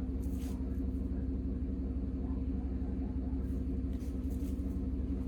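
A steady low mechanical hum with a rumble, like a motor or engine running at constant speed.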